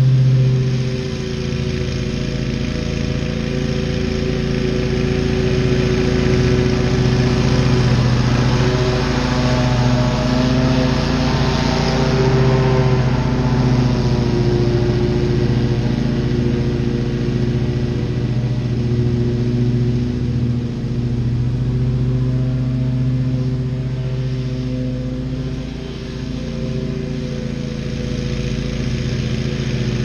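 Wright Stander stand-on commercial mower running at full throttle while cutting grass: a steady engine drone with blade noise, a little louder in the middle as the mower comes closest.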